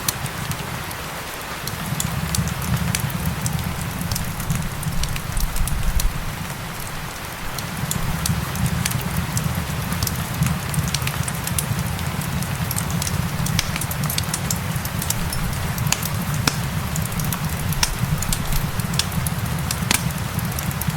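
Wood fire crackling with frequent sharp pops over steady rain, with a low rumble underneath that drops away briefly twice.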